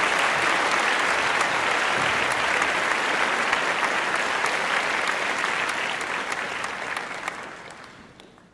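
Applause: many hands clapping in a dense, steady patter, fading out over the last two seconds.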